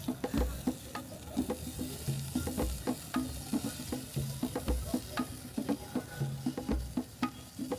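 Background music with a steady beat: a bass note about every two seconds under short repeating notes and clicks, over a faint steady hiss.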